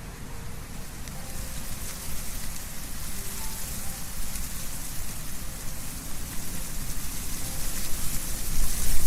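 Wind blowing through trees, leaves rustling in a steady hiss with a low rumble, swelling in a gust near the end.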